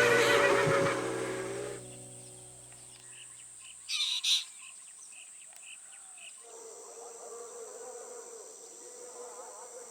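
Guitar music fading out, then a short, loud bird call about four seconds in, followed by a run of soft, evenly spaced chirps. From about six and a half seconds a steady, high-pitched insect drone sets in.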